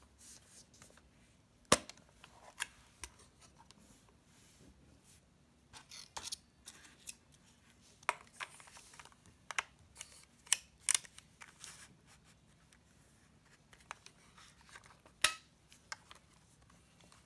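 Pentax PC-3000 compact 35mm film camera being handled: sharp plastic clicks and snaps as its back door is opened, a film cartridge is fitted into the chamber and the door is shut. The clicks come singly and in small clusters, the loudest about two seconds in.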